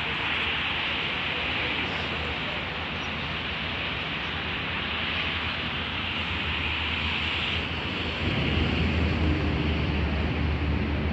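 Steady outdoor background noise: an even hiss with a low rumble underneath that grows louder about eight seconds in.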